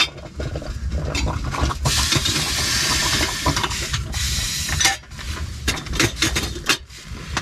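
Metal clinks and knocks of a camp coffee percolator's basket and diffuser being handled and fitted. A dense hiss lasts about three seconds in the middle, and the clinks cluster near the end.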